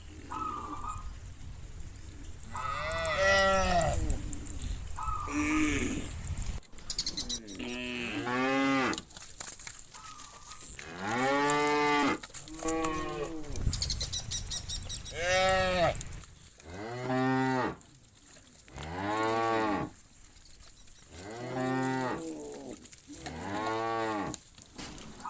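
Cattle mooing, one long call after another, about ten in all, some overlapping from different animals. A low rumble runs under the first few seconds.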